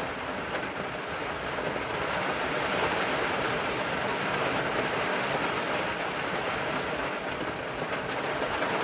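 Rain falling on a car's roof and windows, heard from inside the cabin as a steady, dense hiss.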